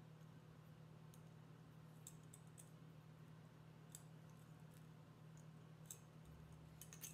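Near silence with faint scattered clicks of 18-gauge wire being looped and wrapped by hand, over a steady low hum.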